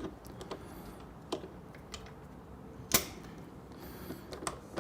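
Light clicks and taps of metal exhaust mounting hardware being handled and fitted, with one sharper click about three seconds in.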